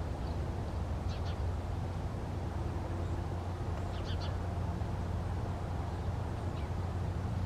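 A bird calling in the distance, short high notes every few seconds over a steady low hum.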